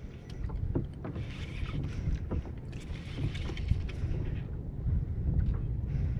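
Water lapping against a plastic kayak hull under a steady low wind rumble on the action-camera microphone, with scattered small clicks and knocks.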